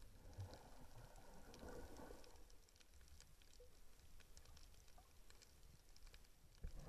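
Faint, muffled underwater ambience through an action camera's waterproof housing: a low rumble with scattered faint clicks and crackles, and a soft thump near the end.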